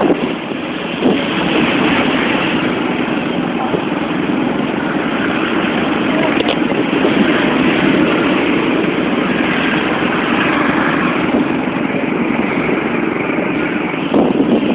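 Steady rumble and wind noise of a moving road vehicle, heard from on board.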